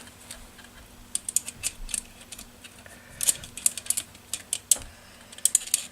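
Irregular light clicks and taps of a small metal tool probing inside the side port of a 1963 Evinrude Lark 40 hp outboard's crankcase, fishing for dropped needle bearings.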